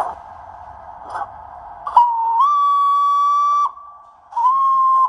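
Digitrains MS055P industrial steam sound project playing from a Zimo MS480R sound decoder through the speaker of an O gauge Hudswell Clarke model tank engine. Slow exhaust chuffs sound over a steady hiss, then a steam whistle blows twice: a long blast about two seconds in that starts a little low and steps up in pitch, and a shorter one near the end.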